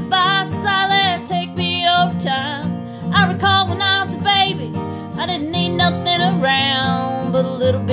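A woman singing long, wavering held notes over a strummed acoustic guitar.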